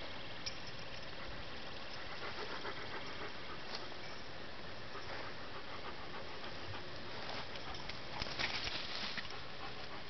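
A dog panting, plainest for a couple of seconds near the end, over a steady background hiss.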